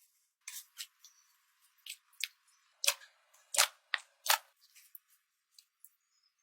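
Slime being pressed and squeezed by hand, giving a series of short, sharp pops and clicks. The three loudest come close together around the middle.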